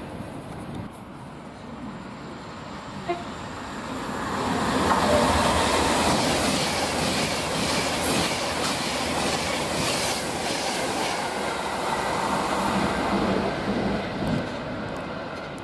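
Avanti West Coast Pendolino electric train passing at speed, its wheels clacking over the rail joints. The sound swells about four seconds in, stays loud and eases off near the end.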